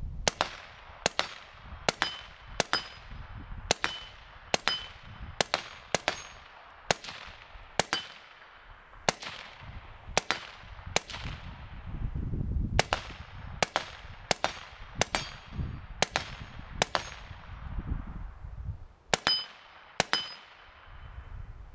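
Suppressed 5.56 Daniel Defense Mark 18 rifle with a SOCOM suppressor firing about two dozen semi-automatic shots, one every half second to second, with a few short pauses. Each shot has a ringing tail, and a faint ringing tone follows many of them. The rifle cycles on every shot with its 2A Armament regulated bolt carrier set halfway between open and closed to tame overgassing from the suppressor.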